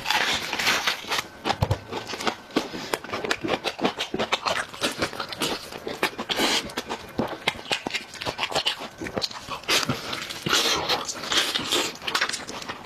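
Close-miked chewing and lip-smacking of boiled chicken: a dense run of wet clicks and smacks.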